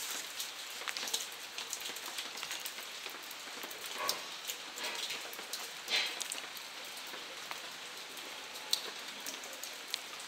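Rain falling, a steady hiss of many small drop ticks, with a few louder taps about four, six and nine seconds in.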